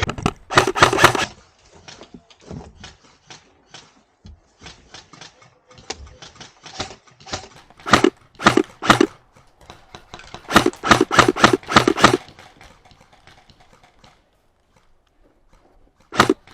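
Electric airsoft rifle (AEG) firing in rapid bursts of shots, the longest about a second and a half long, with fainter scattered clicks between the bursts.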